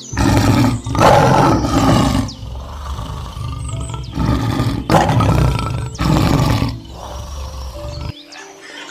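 A large animal giving loud, deep, rough calls: about five long ones in the first eight seconds, with short gaps between them, ending abruptly about eight seconds in.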